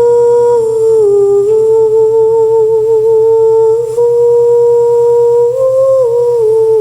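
A voice humming long held notes with small steps down and up in pitch, over a steady low drone.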